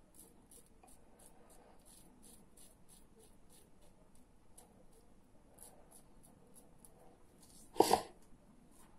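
Fatip Testina Gentile closed-comb safety razor with a Gillette 7 O'Clock blade scraping through lathered stubble on the upper lip in short, faint strokes, about three a second. One brief louder noise comes near the end.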